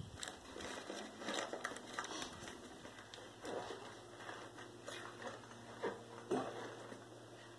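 Soaked paper and torn cardboard being dropped into a metal paper-log press mould and pushed down by hand: irregular soft crackling and rustling, with one sharper knock about six seconds in.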